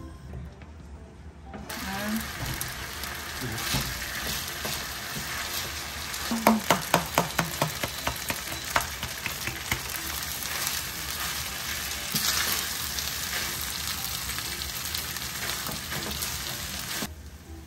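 Kimchi fried rice with tuna sizzling in a nonstick wok as it is stir-fried with a plastic spatula-spoon. A quick run of sharp clicks between about six and nine seconds in, the spoon knocking on the pan, and the sizzle stops abruptly near the end.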